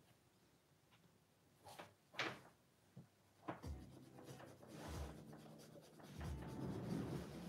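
Faint scratching and rubbing of a woodburning pen's tip moving over a wood slice, with a few light ticks and soft knocks of the hand and pen against the board. It begins after a quiet second or so and thickens into steadier rubbing in the second half.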